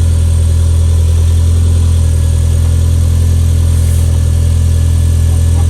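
Toyota MR2's four-cylinder engine idling steadily, freshly tuned up with new spark plugs, distributor cap and rotor; the owner thinks it sounds healthier, though that could be a placebo effect.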